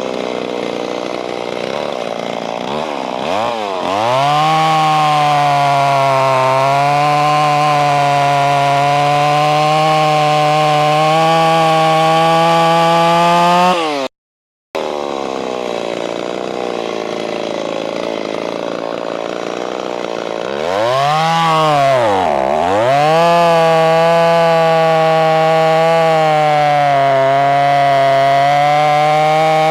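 Ported Stihl 026 two-stroke chainsaw with a 28-inch bar cutting through a big white oak log: it runs at low speed, is throttled up about four seconds in and holds a steady high pitch under load, rising slightly as the cut eases. Later its engine speed drops sharply and climbs back before it settles into full-throttle cutting again.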